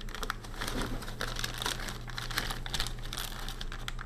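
Clear plastic zip bag crinkling, with many small irregular clicks of hardware parts shifting inside as it is handled.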